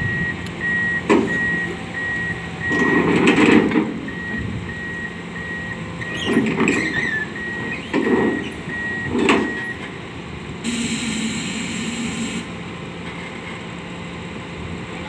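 Backhoe running with its reverse alarm beeping steadily, over a steady engine hum and several heavy clunks; the beeping stops about ten seconds in, followed by a burst of hissing lasting about two seconds.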